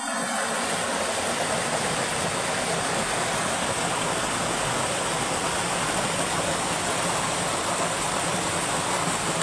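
Shallow water rushing steadily down a sloped concrete spillway, a continuous even rush.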